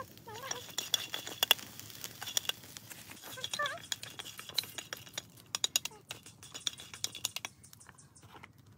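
Irregular sharp clicks and crackles from beetles dry-roasting in a frying pan over a wood fire, with chopsticks clicking against the pan. The clicks thin out near the end.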